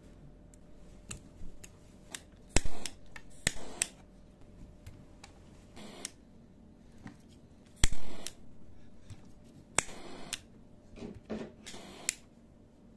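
Small butane jet-torch lighter clicked several times, each sharp ignition click followed by a brief flame hiss.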